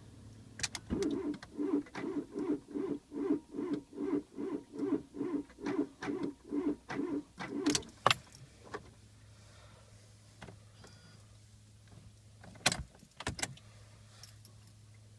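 Fiat Punto 1.2 16V four-cylinder petrol engine cranked by its starter for about seven seconds at a slow, laboured rate of about two to three pulses a second, without firing: a cold start at −34 °C on a low battery. The cranking stops with a sharp click, and two more sharp clicks come near the end.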